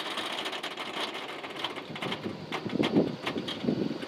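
Fifth-wheel RV's tyres rolling backwards up onto plastic Andersen curved levelers, with many small clicks and crackles as the load comes onto them. The sound swells around three seconds in.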